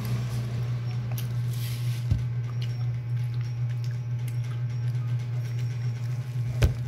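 A steady low hum from a household appliance, with faint small squishing and rustling as a baby handles sticky rice cake in her hands. There is a soft knock about two seconds in and a sharper knock near the end.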